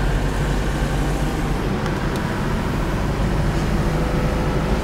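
A car in motion, heard from inside the cabin: a steady rumble of engine and tyre noise.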